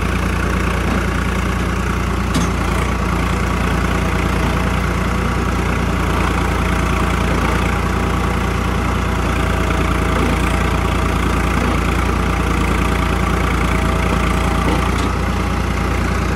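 Swaraj 855 tractor's three-cylinder diesel engine running steadily at low, even revs, heard close up.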